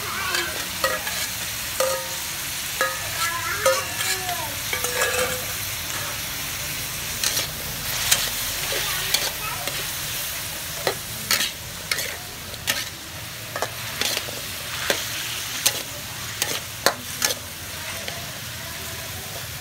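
Beef and sliced carrots sizzling in a hot metal wok while a metal spatula stirs them. The spatula makes frequent irregular clacks and scrapes against the pan over a steady frying hiss.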